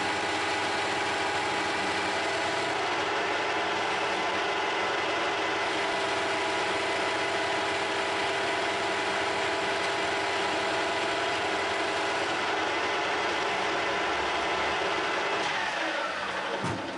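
Metal lathe running with its four-jaw chuck spinning: a steady hum with a whine of several tones. About fifteen seconds in it is switched off and winds down, the whine falling in pitch as the spindle slows.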